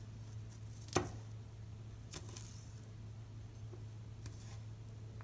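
Chef's knife mincing garlic on a plastic cutting board: a few scattered sharp taps of the blade on the board, the loudest about a second in and another around two seconds, over a faint steady low hum.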